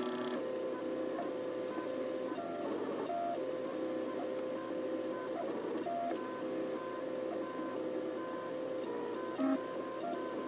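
MakerBot dual-extruder 3D printer printing, its stepper motors whining at steady pitches that jump to new notes every fraction of a second to a second as the print head makes short moves. A brief louder low tone sounds about nine and a half seconds in.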